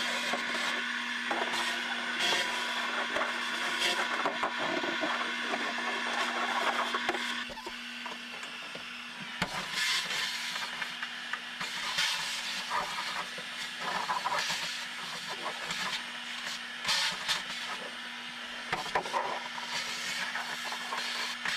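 Shop vacuum running with a steady motor hum while its hose sucks dirt out of a fiberglass bilge. The rush of suction drops about a third of the way in, and after that the nozzle scrapes and rubs over the bilge surface in short bursts.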